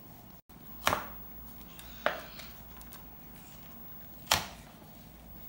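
Plastic toy packet being handled and pulled at, crinkling and crackling, with three sharper crackles about a second, two seconds and four seconds in.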